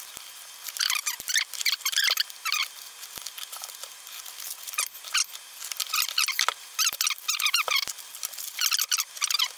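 Plastic bag and bubble-wrap packaging crinkling and rustling as it is cut and pulled open by hand, in quick irregular bursts with a few light clicks between them.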